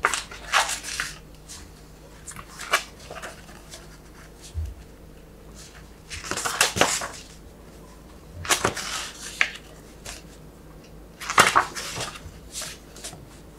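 Glossy pages of a large hardcover graphic novel being leafed through by hand: several separate page-turning swishes and rustles, the fullest a little past six seconds, near nine seconds and near eleven and a half seconds in, with quiet handling between them.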